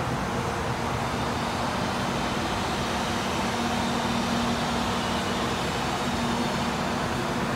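An E402B electric locomotive and its coupled coach standing with their fans and electrical equipment running: a steady whirring noise with a low hum that grows a little stronger about halfway through and again near the end.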